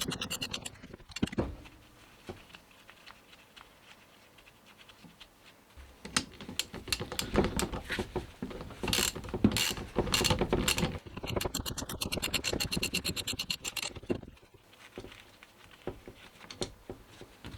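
Hand tools working on a steering rack being taken apart: metal clicks, clinks and scraping. It is quiet for the first few seconds, busiest from about six to fourteen seconds in, then quieter again.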